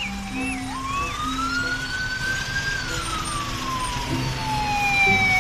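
Police siren wailing in long slow sweeps: the pitch climbs for about two seconds, then sinks for about three, jumping back up before and after each sweep.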